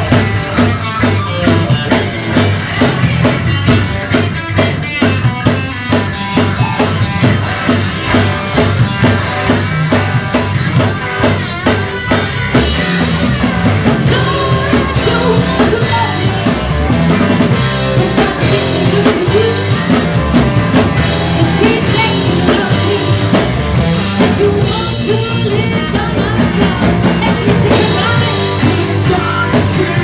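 Live rock band playing: electric guitars, electric bass and drum kit, with a woman singing. A steady cymbal beat drives the first part and returns near the end, while the woman's voice comes in over the band through the middle.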